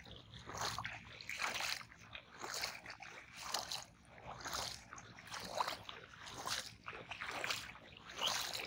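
Shallow water sloshing and splashing around a person's legs as they wade, one splash per step, about once a second.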